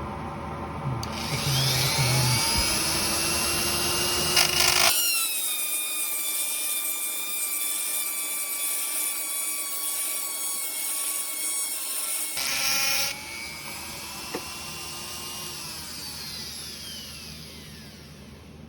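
A high-speed grinder whines as it spins up and grinds a bicycle hub bearing cone turning on a lathe, regrinding the pitted bearing race. The whine starts about a second in and holds steady, with a sharp click partway through. Over the last few seconds it winds down, falling in pitch.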